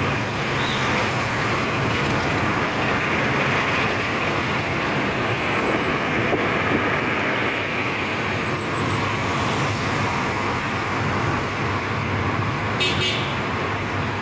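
Steady road traffic noise from cars on a city street, with a brief clatter of sharp clicks near the end.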